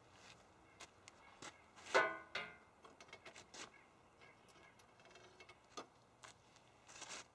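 Faint handling noises: scattered light clicks and rustles, with one louder, short ringing sound about two seconds in.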